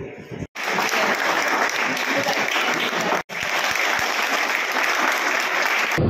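A group of people clapping in steady applause, starting about half a second in, with a sudden momentary dropout about three seconds in.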